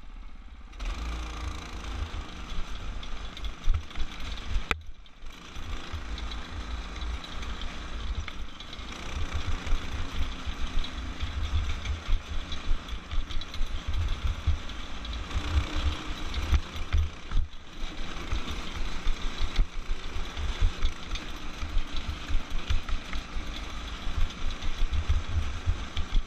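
Off-road go-kart's small engine running hard under load through a torque converter, heard from a helmet camera, with heavy wind buffeting and bumping on the microphone. The sound cuts out briefly twice.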